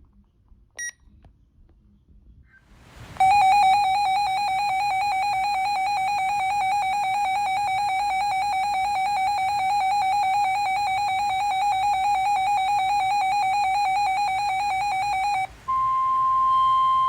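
A weather alert radio going off: a loud, rapidly pulsing alarm tone of about twelve seconds, then, after a short break, the steady 1050 Hz NOAA Weather Radio warning tone, which stops near the end. A short high beep sounds about a second in.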